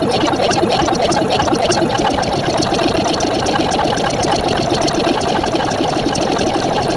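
A rapid, even mechanical rattle, like a small motor running at a steady speed.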